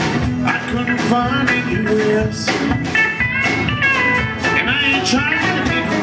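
Live country band playing: electric guitars, bass and drums keeping a steady beat, with a lead line of bending notes about halfway through.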